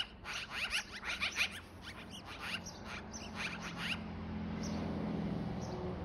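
Black-billed magpie chattering: a rapid run of harsh, raspy notes, about four a second, that stops about four seconds in. A low steady hum then swells underneath.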